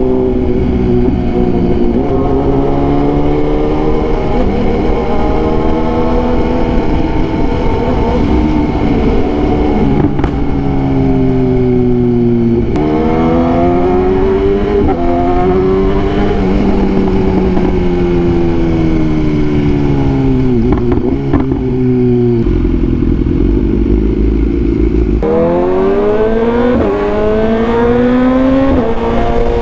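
BMW S1000R inline-four motorcycle engine on its stock exhaust, ridden hard: it revs up and eases off again and again, its pitch dropping sharply at gear changes. There is a short spell of low, steady running about three-quarters of the way in, then it accelerates hard again near the end.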